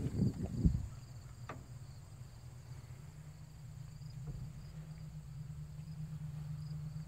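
Crickets chirping steadily in the background over a low steady hum, with a few low thumps in the first second and a single sharp click about one and a half seconds in.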